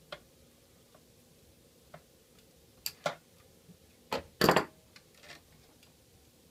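Scattered small clicks and knocks of hands handling parts inside a desktop computer case. A louder clatter comes about two-thirds of the way in, as a screwdriver is set down on a wooden desk.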